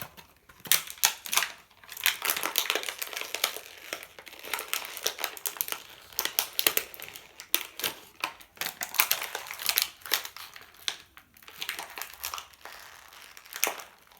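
Plastic toy packaging crinkling and crackling as it is handled and pulled open, in quick irregular crackles that thin out near the end, with one sharp crackle shortly before it stops.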